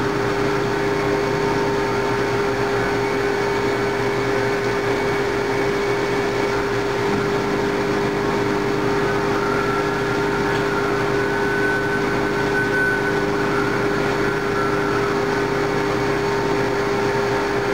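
Haas VF-2 CNC vertical mill milling the workpiece: a steady tone from the spindle and cutter over a constant machine hum.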